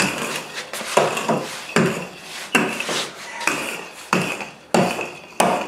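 Wooden rolling pin rolling out a thin sheet of knish dough on a stone countertop: a knock and a short rolling scrape with each stroke, roughly every half second.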